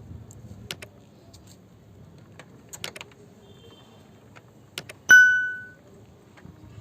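A few sharp clicks and rattles of small hard toy parts being handled, then a single loud, bright bell-like ding about five seconds in that rings out and fades within a second.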